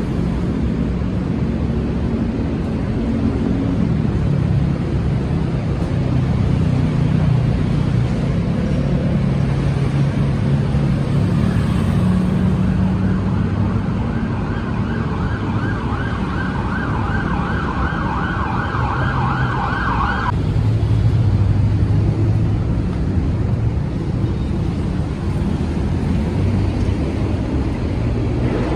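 Road traffic with engines running, and a siren warbling fast from about twelve seconds in until it cuts off suddenly some eight seconds later.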